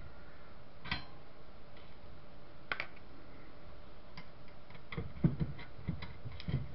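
Scattered light clicks and small knocks of a metal electronics case being taken apart by hand, its screws and chassis handled, with a short cluster of louder knocks about five seconds in.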